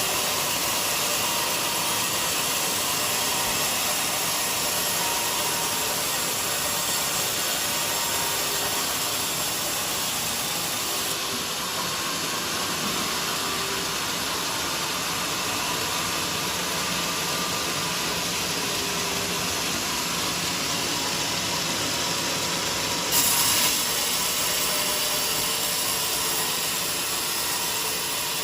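Portable band sawmill running, a steady even noise of its engine and blade as it cuts teak, with a short louder burst about 23 seconds in.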